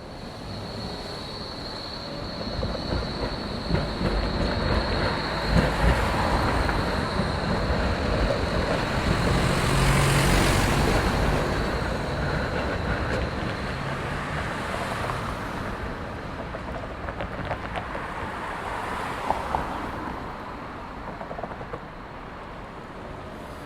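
A train passing by: its rolling noise builds to a peak about ten seconds in and then fades away. A high steady whine fades out about halfway through, and light rattling clicks run through it.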